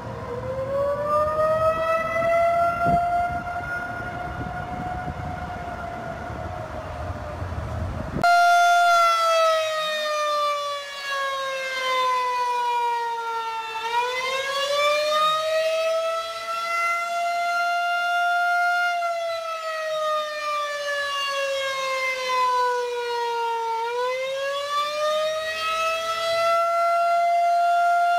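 Outdoor civil-defense warning siren wailing, its pitch rising and falling slowly in cycles of about ten seconds. This is Dallas's emergency siren system, sounding a false alarm after the system was hacked. About eight seconds in, the sound cuts to a second recording of the same wailing with less background rumble.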